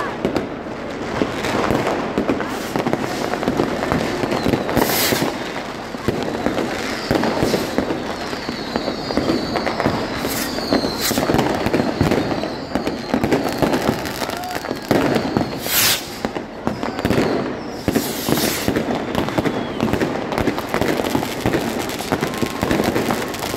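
New Year fireworks going off continuously: dense crackling and popping with several louder bangs, and a falling whistle from a rocket near the middle, over the voices of a crowd.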